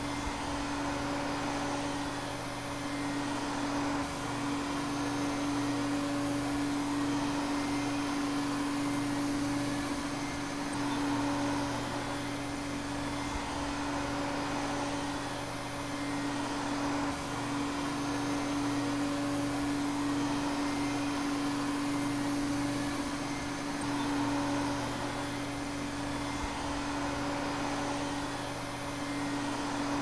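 Vacuum cleaner motor running continuously: a steady low whine over a rush of air, swelling gently every few seconds.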